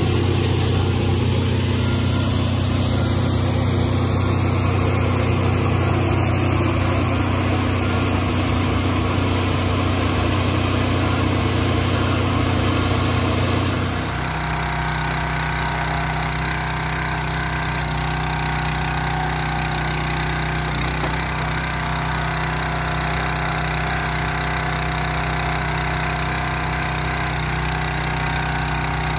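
Small gas engines running steadily. About halfway through the sound changes abruptly to a Countyline log splitter's engine running as wood is loaded onto it.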